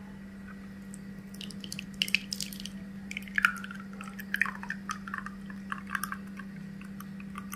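Thick blended herbal liquid pouring from a blender jar into a small glass bowl, with irregular splashes and plops starting about a second and a half in, over a steady low hum.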